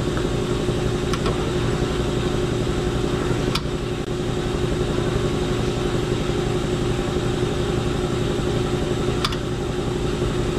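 An engine idling steadily in the background: a low, even hum made of several steady tones. A few faint clicks of hand tools come about a second in, near the middle and near the end.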